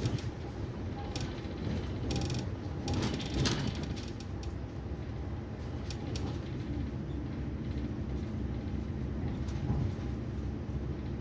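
Inside a moving Railjet passenger train: the steady low rumble of the carriage running along the track, with short bursts of rapid clicking and rattling about two seconds and three seconds in.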